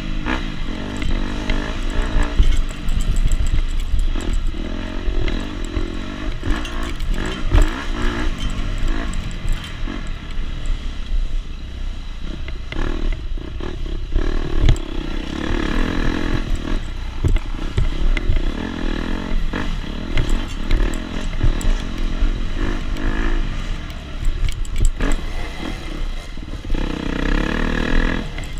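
250 SX two-stroke dirt bike racing on a motocross track, its engine revving up and dropping back again and again, with occasional knocks and clatter.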